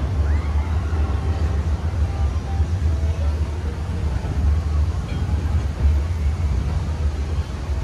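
Steady low rumble of an open narrow-gauge passenger car rolling slowly along the track, with faint voices of people nearby.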